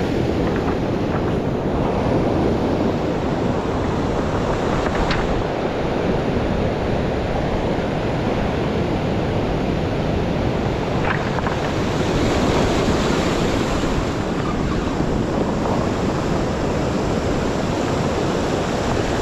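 Ocean surf breaking and washing up a pebble beach, a steady rushing wash of waves.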